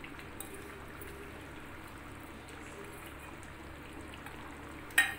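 Faint steady hiss over a kadai of simmering-hot chicken gravy, then a single sharp metallic clack about five seconds in as a utensil knocks against the metal kadai.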